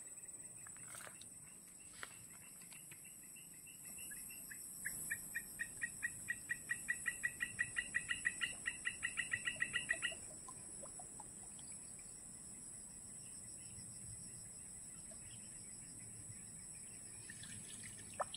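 A bird calling: a fast run of about thirty short, repeated notes, about six a second, growing louder and then stopping abruptly, over a steady high hiss.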